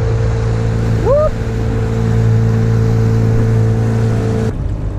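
Small boat's outboard motor running steadily with a low hum and a wide hiss of wind and water. A short rising whistle-like call sounds about a second in, and the hiss drops away near the end, leaving the engine hum.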